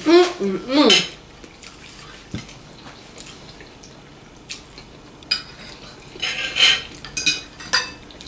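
Cutlery clinking and scraping on plates during a meal: scattered light clicks, then a busier run of clinks in the second half. A brief high-pitched vocal sound with a gliding pitch comes in the first second.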